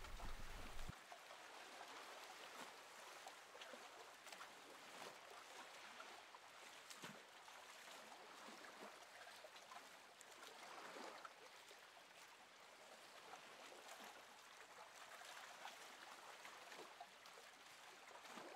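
Near silence: a faint, even hiss with a few soft ticks.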